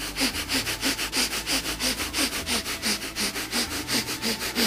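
A man doing rapid, rhythmic forced breaths through the nose, several a second, as a martial-arts breathing exercise for building energy.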